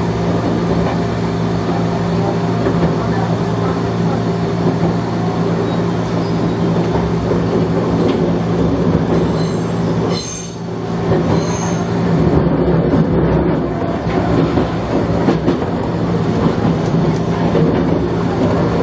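Gakunan Railway electric railcar running along the line, heard from inside the car: a steady motor and gear hum over rumbling wheel and rail noise, with brief high-pitched wheel squeals around the middle.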